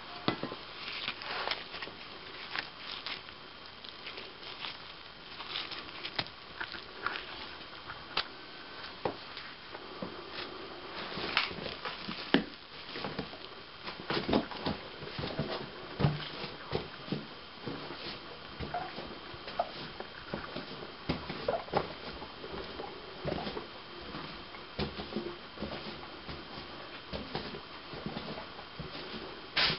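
Loose rock rubble clattering and crunching as it is handled or stepped on: irregular sharp clicks and knocks with no steady rhythm, a few louder knocks about halfway through.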